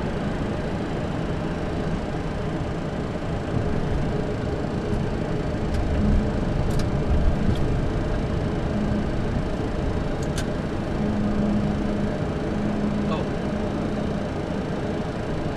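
Steady flight-deck noise of a Boeing airliner taxiing slowly at idle thrust: a low rumble of engines and air conditioning, with a few faint clicks.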